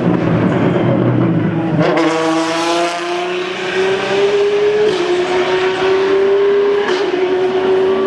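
Apollo Intensa Emozione's V12 engine accelerating. A low rumble gives way, about two seconds in, to a high engine note that climbs steadily in pitch. It dips briefly about five and seven seconds in, as it shifts up through the gears.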